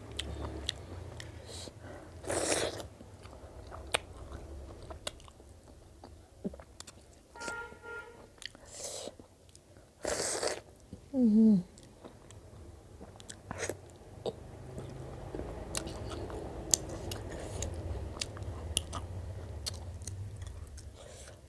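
A person eating close to the microphone: chewing and biting with crunches and many sharp wet mouth clicks, and a few short louder bursts. Just after the middle comes a short falling pitched sound, the loudest thing heard.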